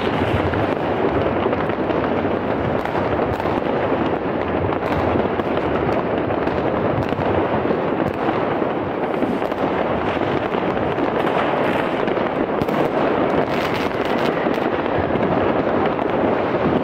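Many fireworks and firecrackers going off at once all around: a dense, unbroken crackle of pops and bangs, with louder bangs standing out here and there.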